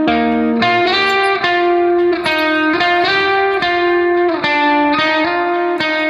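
Background music: a slow instrumental melody of held notes, each lasting about half a second to a second, on what sounds like a plucked-string instrument with effects.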